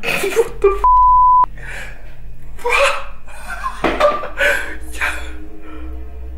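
A single steady electronic beep, about half a second long, a second in. Short bursts of a voice with gasp-like sounds come around it, over quiet background music.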